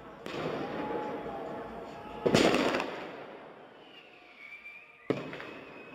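Bird-scarer (Vogelschreck) firecrackers going off. A rushing noise comes first, then a loud bang about two seconds in that dies away with a trailing echo, and a second sharp bang about five seconds in.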